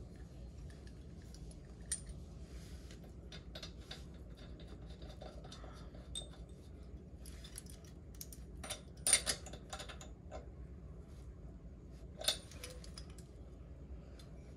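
Scattered light metallic clicks and clinks of hand tools and small motorcycle engine parts being handled, with a sharper clink about nine seconds in and another about twelve seconds in. A low steady hum sits underneath.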